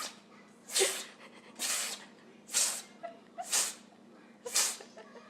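An animal sneezing over and over, about six short sharp sneezes roughly a second apart.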